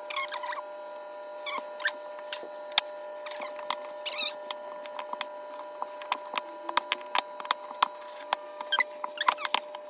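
Puff pastry scraps being peeled off a floured worktop and pressed together by hand: scattered sharp clicks and short squeaks, coming thicker near the end, over a steady background hum.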